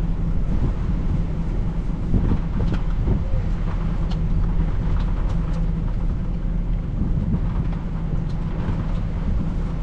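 Wind rumbling on the microphone over a steady low hum from a vehicle engine, with a few faint ticks.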